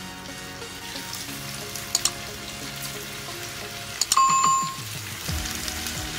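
Battered bitter gourd rings deep-frying in hot oil with a steady sizzle, under background music. About four seconds in comes a click and then a short, bright bell ding, the loudest sound, from a subscribe-button sound effect; a smaller click comes about two seconds in.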